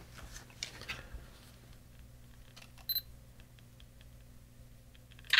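Handheld digital camera taking a photo: a short high beep about three seconds in, then the shutter sound, a brief noisy click, near the end, over faint handling clicks.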